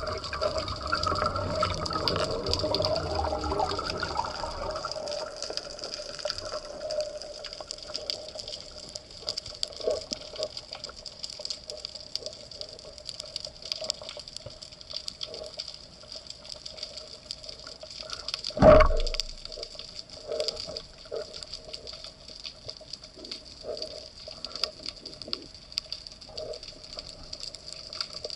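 Underwater ambience: a rush of water for the first few seconds, then a steady hiss with scattered faint clicks. About two-thirds of the way through comes one sharp, loud thump.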